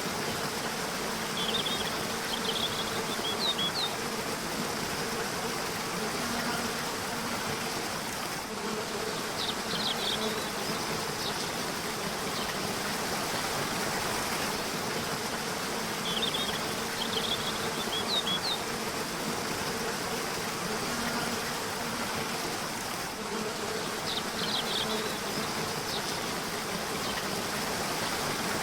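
Steady rush of water from a river waterfall, with short clusters of high bird chirps coming back about every seven seconds and a faint low buzz underneath.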